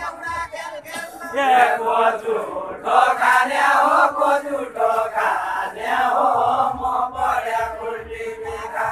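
A group of men singing a Deuda folk song together in a chanted, rhythmic verse, many voices overlapping. The singing grows fuller and louder about a second and a half in.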